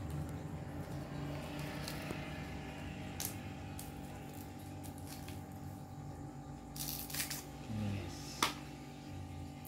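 A kitchen knife cutting and peeling the layered, fibrous husk of a terubuk (edible sugarcane flower shoot), giving scattered crisp snaps and crackles, a cluster about seven seconds in and the sharpest just after. A steady low hum runs underneath.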